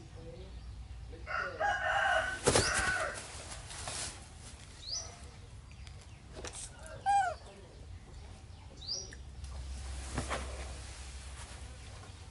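Chickens in the yard: a rooster crows a little over a second in and birds cluck later, with short high bird chirps every few seconds and a few sharp knocks.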